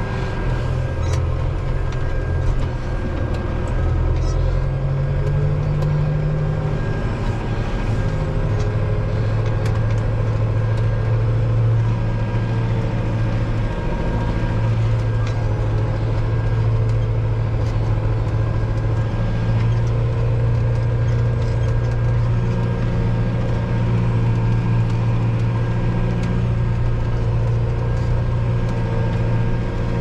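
Valtra N91 tractor's diesel engine running steadily under load, pulling a plough through wet ground, heard from inside the cab as a low, even drone with a faint constant whine.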